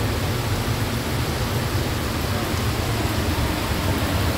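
Steady rushing noise of heavy rain and muddy floodwater, heard from inside a bus, with a low rumble underneath.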